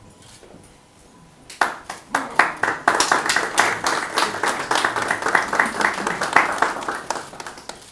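Audience applauding, starting about one and a half seconds in and thinning out near the end.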